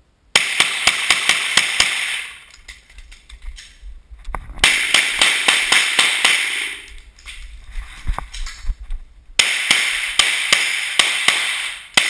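Glock 9 mm pistol fired in three rapid strings of about seven shots each, with pauses of a couple of seconds between the strings, during a timed action-shooting stage.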